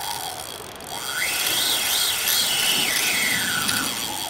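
Large Shimano Baitrunner 12000 spinning reel whining under load while fighting a hooked fish. The whine rises in pitch about a second in, wavers, and falls away near the end, over a steady hiss.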